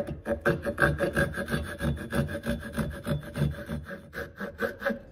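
Hand saw cutting shallow grooves into a wooden chair part in quick, short back-and-forth strokes, about five a second, easing off near the end.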